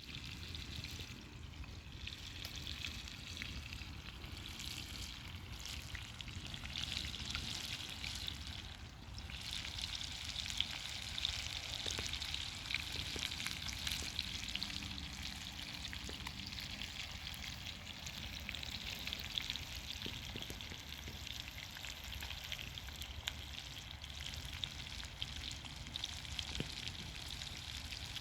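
Fresh river fish frying over a campfire: a steady sizzle with many small pops and crackles.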